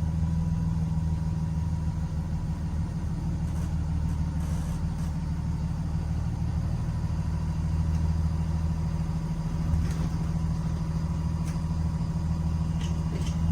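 Blue Bird Vision school bus engine idling steadily, a low even hum with a faint steady whine above it.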